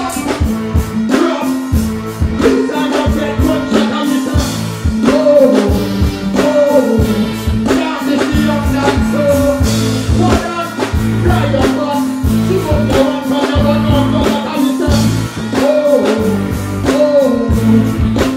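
Live reggae band music played loud through a stage PA: a steady drum beat and heavy bass, with a male singer's voice over it.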